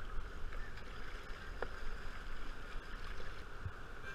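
River water washing and splashing around a whitewater kayak as it is paddled, a steady rush of noise. A couple of dull knocks come near the end.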